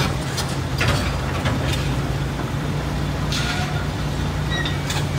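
Heavy diesel machinery engine running at a steady low drone, with a couple of short bursts of hiss.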